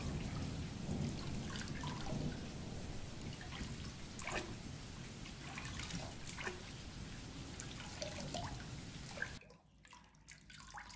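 Thunderstorm sounds: a low rumble of thunder dying away, with scattered drips of rain, then a brief near-silence about nine and a half seconds in.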